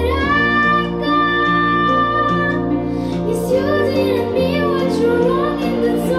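A young girl singing a slow pop ballad into a handheld microphone over a recorded backing track, holding one long note and then moving into shorter phrases.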